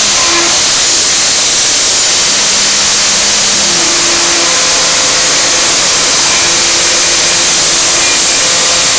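CNC router spindle running at 10,000 rpm, its 1/8-inch carbide spiral up-cut bit milling a DB9 port cutout in 1/8-inch 2024-T3 aluminum plate in shallow 0.020-inch passes. A loud, steady high whine and hiss with faint tones that shift as the cutter moves along the outline.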